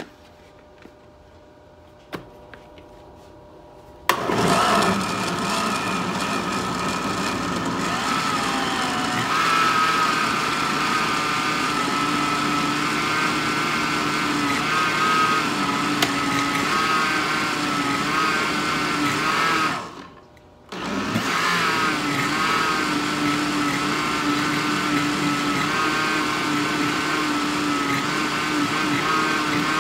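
Electric blender switched on about four seconds in, running steadily as it blends fruit, yogurt, milk and juice into a smoothie, its pitch wavering slightly. It stops for about a second around twenty seconds in, then starts again.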